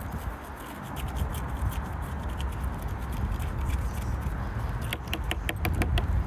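A red chili pepper being split open and seeded by gloved hands over a wooden cutting board: small scraping and crackling ticks, thickening into a quick run of ticks about five seconds in as the seeds drop onto the board, over a steady low rumble.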